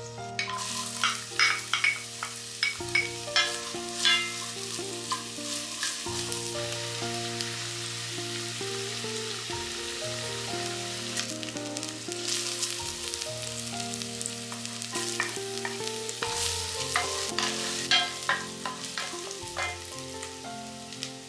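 Chopped onion and garlic sizzling in hot oil in an enamelled cast-iron pot, the sizzle starting about half a second in as they are tipped in. A wooden spatula stirs them, with sharp knocks against the pot in the first few seconds and again near the end.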